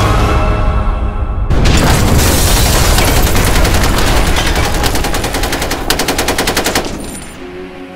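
Sound-effect gunfire over a music score: a dense stretch of rapid shots starts about a second and a half in and ends in a fast, even machine-gun burst that cuts off near the end.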